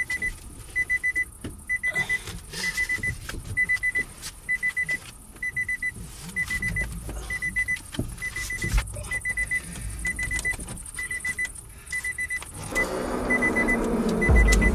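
A car's warning chime beeps over and over, short high beeps about one and a half times a second. Near the end the starter cranks the engine of a car that will not start, a steady low rumble under the beeps.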